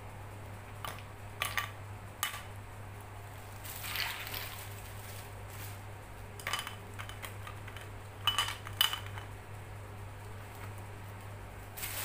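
Ice cubes dropped into a portable blender's jar, clinking and knocking against it several separate times, with a longer scraping rattle about four seconds in.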